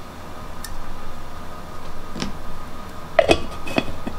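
Light clicks and taps on a glass mason jar: a couple of faint ones, then a quick cluster of knocks about three seconds in as a plastic lid is set on the jar and screwed down.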